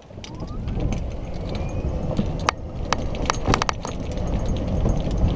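Golf cart pulling away and driving along a paved cart path: a rising whine as it picks up speed over the first two seconds, over a steady rumble with frequent sharp clicks and rattles.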